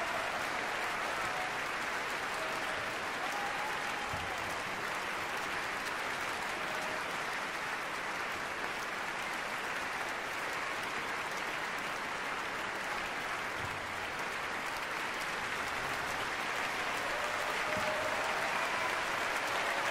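Large audience applauding steadily in a concert hall, with a few faint voices calling out over the clapping near the start and again near the end.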